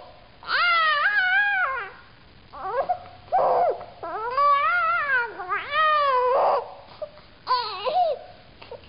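Eight-month-old baby fussing and crying in about five drawn-out, high-pitched wails with short pauses between them, protesting at being put on her tummy.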